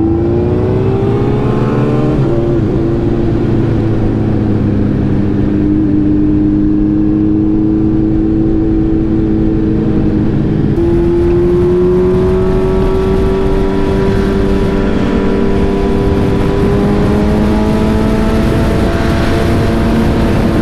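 Sportbike engine running under way, its note rising as it accelerates over the first couple of seconds, then holding a steady pitch that climbs slowly again through the second half, with wind noise.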